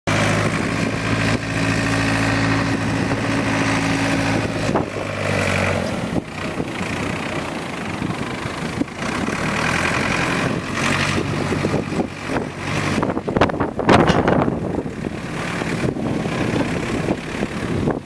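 1990 Ford 555C backhoe's Ford industrial diesel engine running as the machine drives by, strong and steady for the first six seconds, then fainter as it moves off. About two-thirds of the way through, a burst of rushing noise is the loudest moment.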